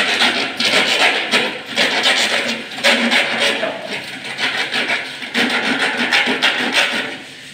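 Flexible corrugated aluminium chimney duct crinkling and rasping as it is handled and stretched out by hand, in a quick run of scraping rustles.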